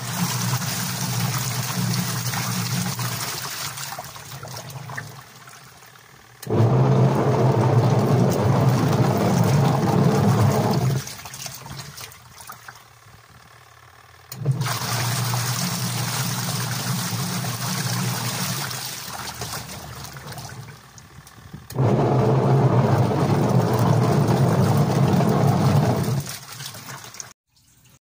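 Sharp single-tub washing machine agitating a load: the motor drives the pulsator one way and then the other, with water swishing and short lulls at each reversal. In one direction it runs noticeably louder with a grinding sound and turns weakly. This is the fault being repaired, which the repair traces to the gearbox.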